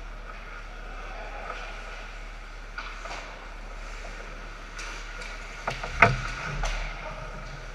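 Ice hockey play in front of the net: skates scraping the ice and sticks clacking over a steady background hum, with a cluster of sharp cracks about six seconds in, the loudest of them a single hard hit as the play reaches the goalie.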